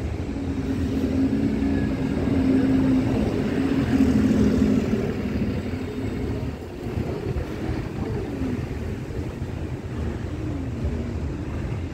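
A city bus drives past with its engine running, loudest about four seconds in and then fading, over a steady low rumble.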